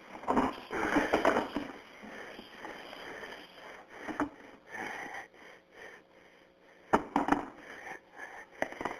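Telephone handling noise on a 911 call line: muffled rustling and shuffling with a few sharp knocks, as the caller moves about holding the phone.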